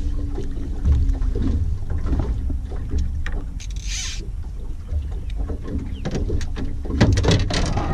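Wind buffeting the microphone over open water, a steady low rumble. A brief hiss comes about four seconds in, and a few small knocks near the end.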